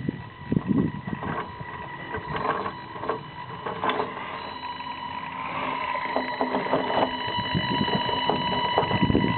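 Tamiya CR-01 radio-controlled rock crawler's electric motor and gearbox whining at a steady pitch as it crawls over rocks, with knocks and scrapes of the tyres and chassis on the stones. The whine grows louder about halfway through.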